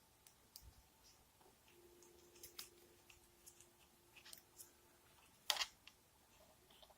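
Near silence with scattered faint clicks and one sharper click about five and a half seconds in; a faint steady hum runs through the middle.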